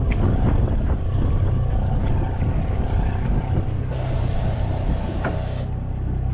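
Party boat's engine running with a steady low hum, wind buffeting the microphone, a few sharp knocks, and a hiss lasting under two seconds from about four seconds in.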